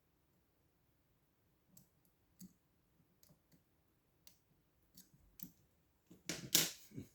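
Lock being picked: scattered small metallic clicks of a pick and tension wrench working in the keyway, ending in a louder clatter of clicks near the end.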